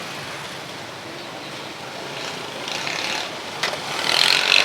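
Street noise with traffic going by, growing louder with a rushing burst near the end, and a short sharp click just before it.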